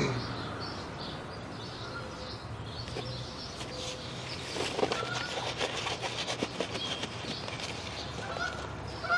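A few short animal calls over a steady low hum, with scattered ticks and clicks in the second half.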